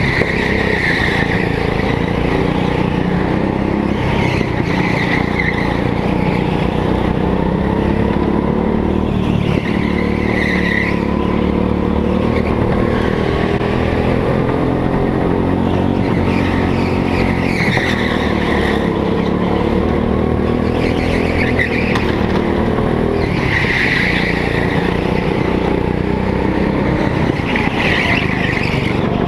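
Go-kart engine heard close from the kart itself, its pitch rising and falling as it accelerates out of and lifts into corners, with short tyre squeals on the smooth floor every few seconds through the bends.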